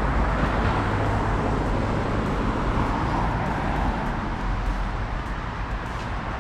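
Steady road traffic noise from a city street, with a continuous low rumble.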